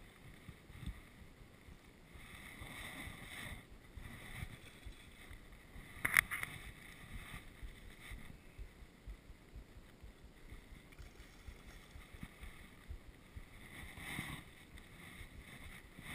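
Faint wind on the microphone and soft rustling of hands working a fly rod and line, with one sharp click about six seconds in.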